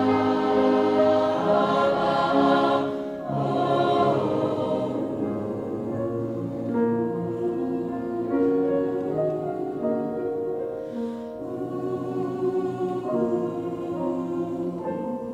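Mixed choir of young voices singing held chords, fuller and louder for the first few seconds, then softer.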